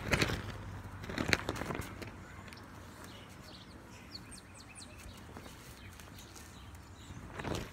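A color guard flag's fabric swishing through the air as it is spun, in short swells: one at the start, one about a second in, and one near the end. Birds chirp faintly in between.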